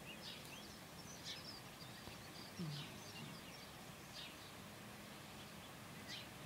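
A sleeping puppy snoring softly, a low snore every few seconds, with faint high chirps over it.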